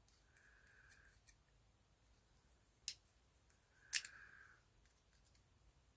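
Faint handling of small screws being tightened with a screwdriver: two sharp clicks and two short scrapes, the second scrape right after the second click.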